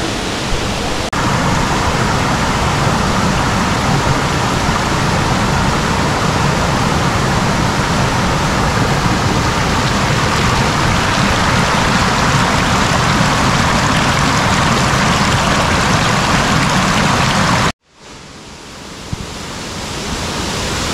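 Waterfall water rushing steadily. It steps up a little about a second in, cuts out abruptly near the end, and fades back in.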